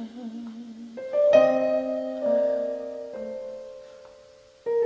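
Piano in a slow ballad's instrumental break. A held sung note tails off at the start, then a piano chord is struck about a second in and rings and fades, and a new chord comes in near the end.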